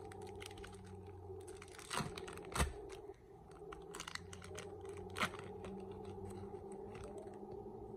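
Foil wrapper of a hockey card pack being torn open and crinkled by hand, a few sharp crackles about 2 and 5 seconds in, over a steady low hum.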